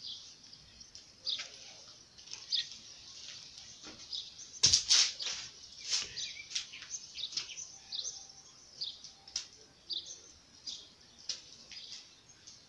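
Small birds chirping in short, scattered calls, with a single thump about five seconds in.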